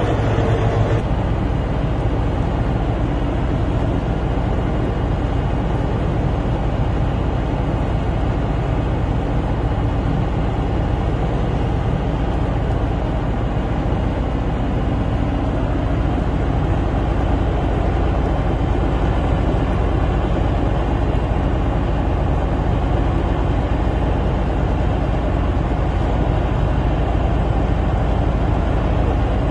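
Heavy machinery with an engine running steadily, a continuous low mechanical noise; the sound changes character about a second in.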